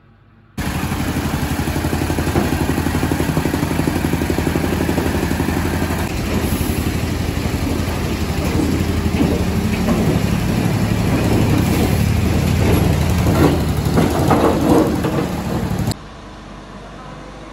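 Construction machinery engine running steadily with a fast, even chug. It starts abruptly about half a second in, gets a little louder with a few clanks near the end, and cuts off suddenly shortly before the end.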